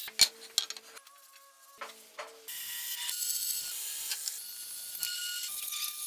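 Workshop power tools in quick cuts: a drill press drilling, with sharp clicks and brief hums, then from about halfway a steady hissing tool run that ends on a bandsaw cutting the wooden knife handle.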